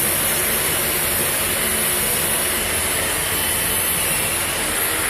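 A steady, loud rushing hiss, strongest in the high treble, that cuts off abruptly just after five seconds.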